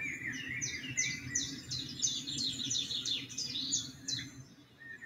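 Recorded birdsong played back: a bird repeating quick, high chirps that each fall in pitch, about three a second, over a low steady hum. The chirping stops about four seconds in.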